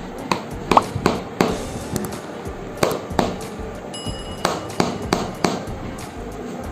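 A chiropractic massage hammer striking the body: about ten sharp, irregular knocks over background music.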